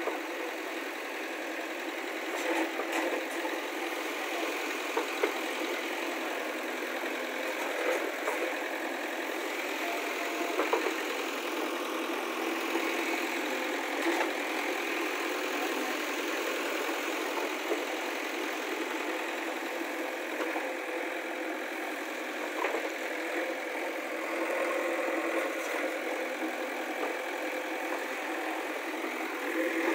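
JCB 3DX backhoe loader's diesel engine running steadily while the backhoe digs soil, with a few scattered knocks from the bucket and arm.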